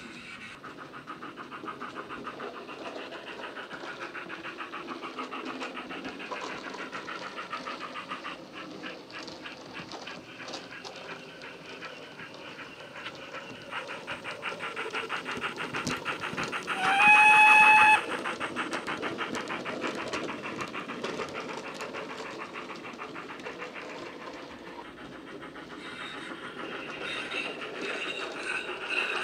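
DCC sound file of the steam locomotive 15XX pannier tank No. 1501, played through the small built-in speaker of a model locomotive: steady exhaust beats as it runs, with one short, loud whistle blast a little past halfway.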